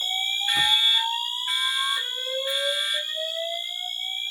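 Fire alarm system in alarm just after a pull station is pulled: a steady high-pitched tone, a horn tone pulsing about once a second, and a slow rising whoop sweeping upward twice, the alert signal that comes before a voice evacuation message.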